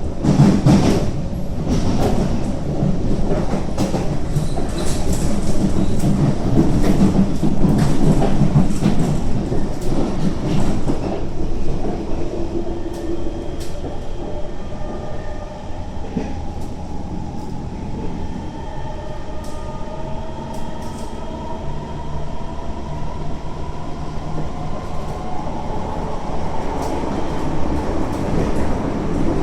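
Kawasaki C151 metro train running at speed, heard inside the carriage: a loud rumble with rapid clicking from the wheels on the track for the first ten seconds or so, then a quieter run with a motor whine that creeps slightly up in pitch.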